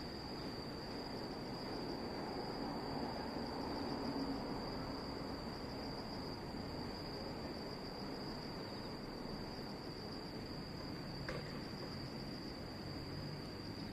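Insects trilling steadily on one high note over a low background rumble, with a single brief click about eleven seconds in.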